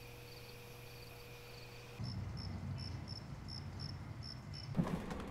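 Crickets chirping at night, a faint, evenly spaced run of chirps about three a second over a low steady hum. About two seconds in the background gets louder and the chirps sit a little higher. Near the end they stop and a thump leads into room noise.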